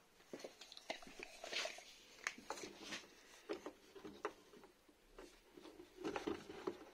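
Faint, irregular handling sounds: small clicks, taps and rustles of a ruler and marker being worked against a plastic RC car body. They come a little thicker near the end.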